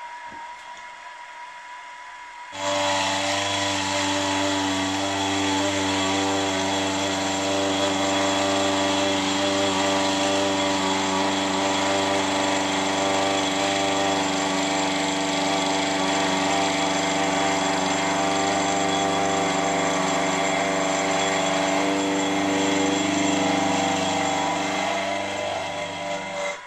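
Small milling machine's motor and spindle start abruptly about two and a half seconds in and run with a steady whining hum while the end mill cuts a face on a brass part. The pitch sags slightly a few seconds before the end, as under more cutting load.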